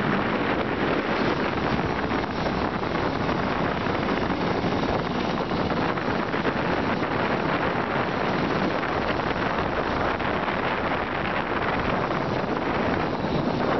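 Steady wind rushing over the microphone of a moving motorbike, with road noise beneath and no clear engine note.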